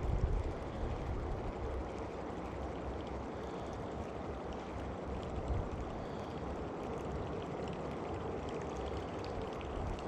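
Steady rushing, water-like noise with low rumbling buffets near the start, typical of wind and water on the microphone on open water.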